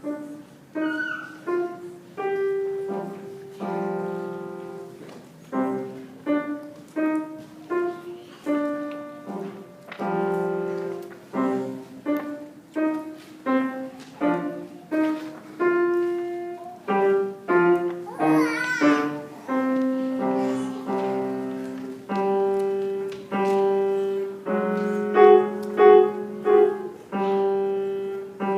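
Solo piano playing a slow piece: single notes and small chords struck one after another, each ringing and fading, mostly in the middle register. A brief wavering high sound cuts across the notes past the halfway point.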